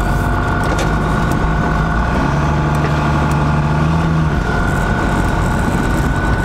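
12-valve Cummins diesel truck under way, its engine drone overlaid by a steady high whistling, howling tone. The owner can't tell whether it is just turbo whistle or a sign of something bad.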